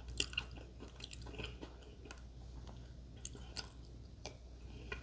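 A person chewing a mouthful of grinder sub sandwich close to the microphone, with scattered short mouth clicks.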